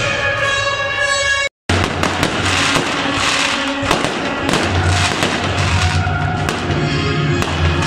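Music for about the first second and a half, cut off abruptly. Then fireworks bursting and crackling overhead in a dense run of sharp pops, with music still playing faintly beneath.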